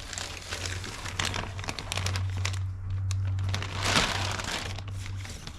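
Plastic packaging crinkling and rustling in irregular bursts as a new motorcycle clutch cable is handled, with a steady low hum underneath.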